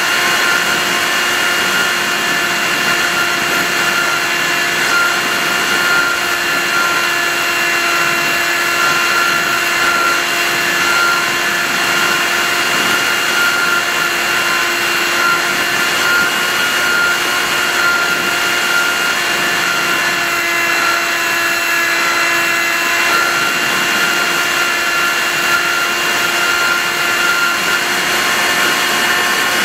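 Radio-control model plane's motor and propeller running at a steady pitch, recorded by a camera mounted on the airframe, with wind rushing over the microphone.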